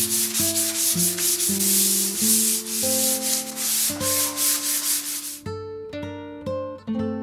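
Brown paper rubbed in quick strokes over the lacquered wooden surface of a bentwood bench, smoothing down the finish. The rubbing stops suddenly about five seconds in.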